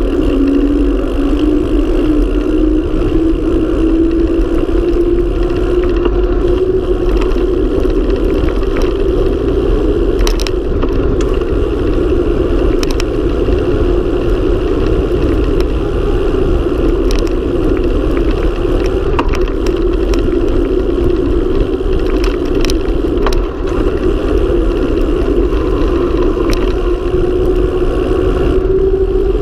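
Wind rushing over the microphone of a mountain bike descending fast on asphalt. A hum from the spinning wheels slowly rises in pitch as the speed builds, with scattered clicks and rattles from bumps in the road.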